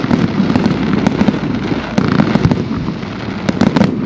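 Fireworks going off: a dense, continuous crackle of sharp pops and cracks over a steady rush, with a cluster of louder cracks about three and a half seconds in.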